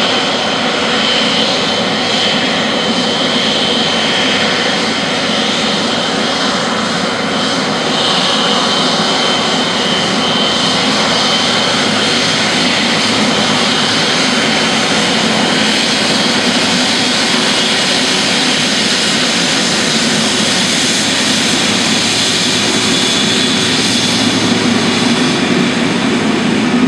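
Boeing 777F freighter's twin GE90 turbofan engines running at taxi power as the aircraft rolls past: a steady jet roar with a thin high fan whine over it.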